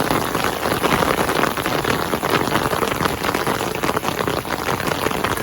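Heavy rain falling steadily, a dense patter of many drops.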